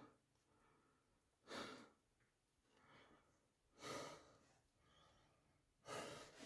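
A caver breathing hard from the effort of squeezing through a tight rock passage: three strong breaths about two seconds apart, with fainter ones between.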